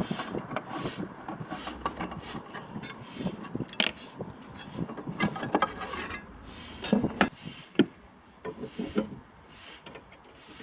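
Hand work with tools: rhythmic rubbing or scraping strokes, about two a second, with scattered clicks and knocks.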